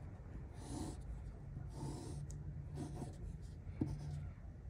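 Mechanical pencil drawing on paper: faint strokes scratching in short runs, with one light tick a little before the end.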